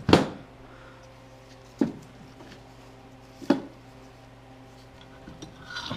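Three sharp metal knocks, the first the loudest and the others about a second and a half apart, as a crankshaft with connecting rods on it is handled and knocks against the metal tray and its own parts. A few lighter clinks follow near the end.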